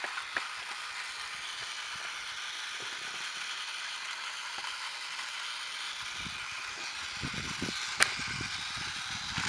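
Battery-powered Tomy Plarail toy train's small motor and gearbox whirring steadily as it runs along plastic track, with one sharp click about eight seconds in.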